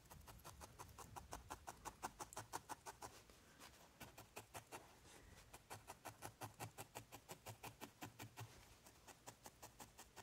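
A barbed felting needle stabbing rapidly into white wool roving on a felting pad: a quick run of faint, soft ticks, about six a second, with a few brief pauses.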